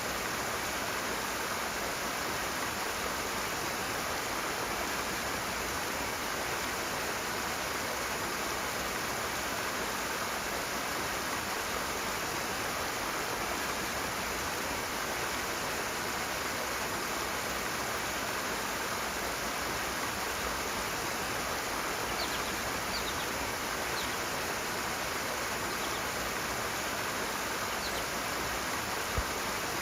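Fast-flowing stream rushing steadily over rocks, with a few faint high chirps in the second half.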